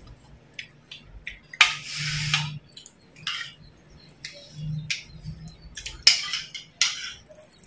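Sounds of eating at a table: spoons clicking and scraping against ceramic bowls and plates. Scattered sharp clicks, with a louder noisy stretch of about a second near the start.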